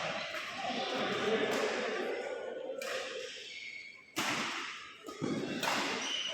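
Storm noise: wind and rain rushing in gusts, with sudden loud surges about four and five and a half seconds in.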